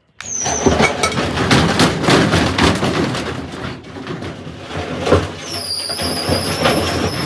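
Samsung washing machine running loaded with heavy bricks: a dense, continuous clattering and banging of bricks in the drum over a high motor whine, which rises again about five seconds in.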